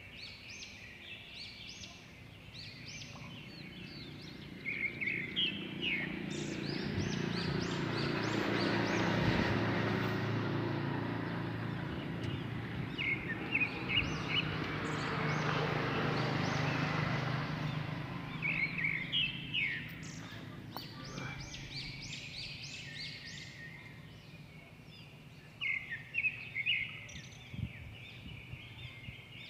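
Small birds chirping in short repeated calls, while a broad rushing noise with a low hum swells up over several seconds in the middle and then fades away.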